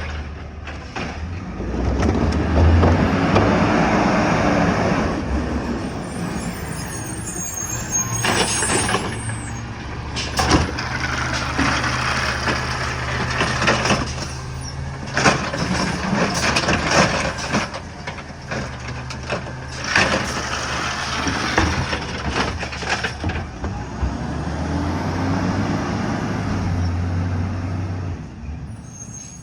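Heavy truck's engine running with a steady low drone, swelling louder twice as it revs, and several sharp air-brake hisses in the middle.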